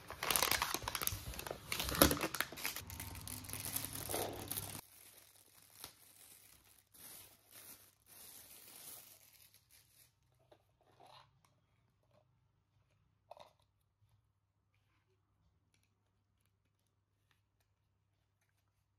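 Packaging being torn open and crumpled during an unboxing: loud crackling for about the first five seconds, then softer rustling with a few light clicks, thinning out to occasional faint taps.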